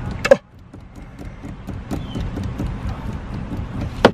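Low, uneven rumble inside a stationary car's cabin, with a sharp knock about a third of a second in and another near the end.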